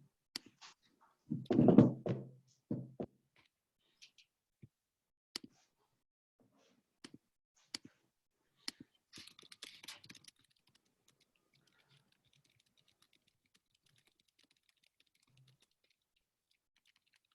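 Scattered clicks and taps of a computer keyboard and mouse at a desk, with one loud dull thump about two seconds in and a short rustle near the middle.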